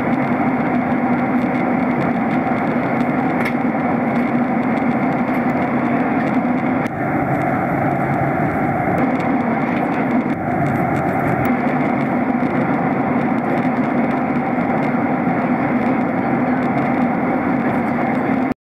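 Airliner cabin noise in cruise: a loud, steady drone of jet engines and rushing air, with a faint steady hum in it. It cuts off suddenly just before the end.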